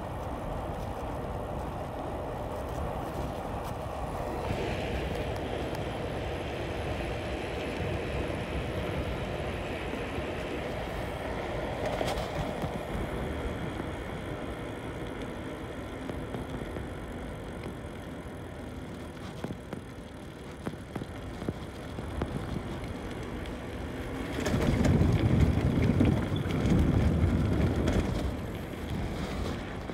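Steady riding noise from a Groove e-Ride e-bike rolling on asphalt at about 10–15 mph: wind rushing over the microphone with tyre hum. Heavier wind buffeting comes in for a few seconds near the end.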